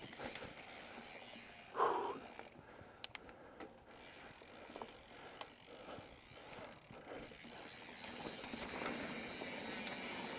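Mountain bike riding over dirt singletrack: tyre noise with scattered clicks and knocks from the bike. There is a louder short thump about two seconds in, and a steadier rushing noise builds near the end.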